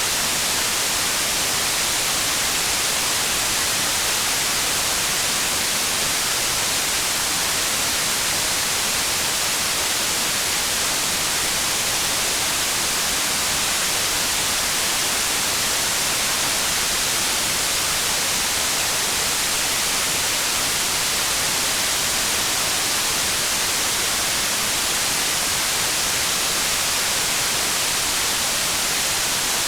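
Steady rain, heard as an even, unbroken hiss with no separate drops standing out.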